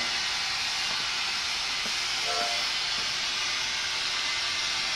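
A model steam locomotive's DCC sound decoder on an On3 narrow-gauge layout, playing a steady, even hiss of escaping steam.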